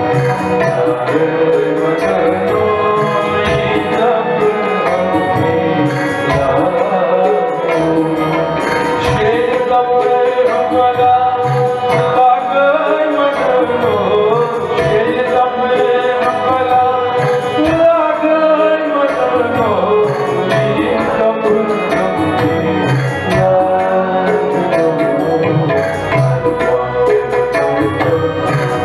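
Live Kashmiri Sufi music: a male singer with harmonium and tabla accompaniment. The harmonium holds steady chords under the voice's gliding melodic lines, and the tabla keeps a regular beat.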